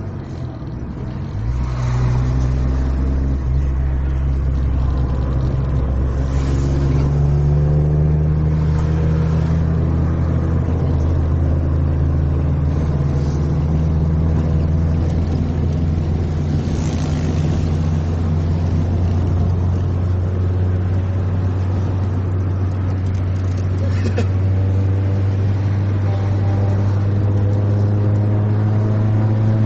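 Bus engine running with a steady low drone, its pitch rising again and again as the bus accelerates through the gears.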